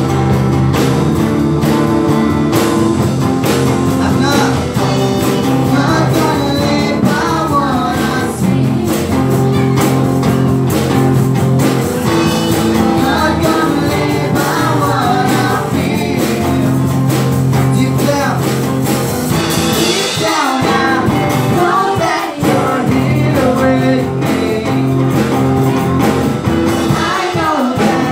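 Live worship band: two girls singing a melody into microphones over electric guitar and a drum kit, amplified through a PA.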